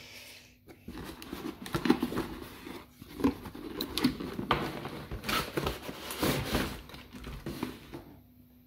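Cardboard packaging being handled: hands sliding and pulling a boxed item out of a cardboard shipping box, with irregular rustling and scraping and a few sharp knocks of cardboard.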